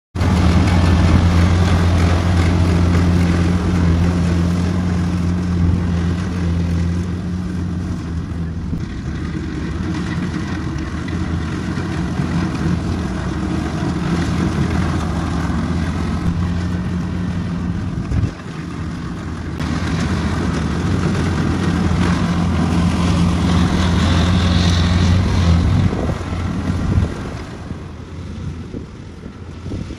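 Crawler rice combine harvester's diesel engine running steadily under load as it cuts rice, a low even hum with a machinery rattle over it. The hum drops away for a moment a little past halfway and fades near the end.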